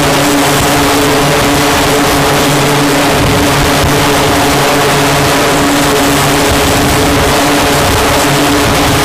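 F/A-18 Hornet jet engines running at high power on a carrier flight deck: a loud steady roar with low droning tones that fade near the end.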